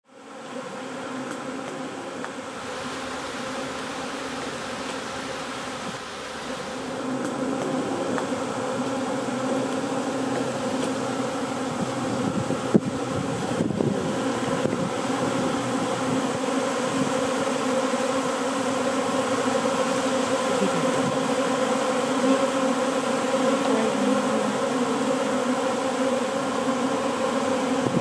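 A swarm of honeybees buzzing in a steady, dense hum. It fades in at the start and grows louder about seven seconds in.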